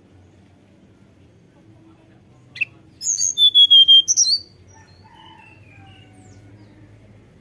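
Hill blue flycatcher singing: a single sharp note, then about three seconds in a loud, quick, high-pitched phrase with a falling whistle, followed by a few softer, falling notes.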